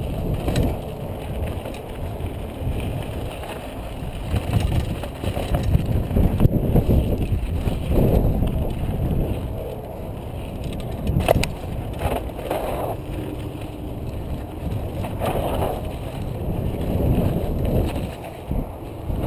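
Wind rushing over a helmet-mounted camera's microphone while a Specialized Big Hit downhill mountain bike descends a rough dirt trail. The tyres rumble over dirt and rocks and the bike rattles, with a few sharp knocks from hits, clearest about six and eleven seconds in.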